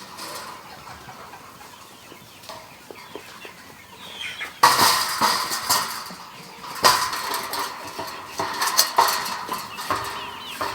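Chickens clucking, with a sudden run of loud clattering knocks starting about four and a half seconds in.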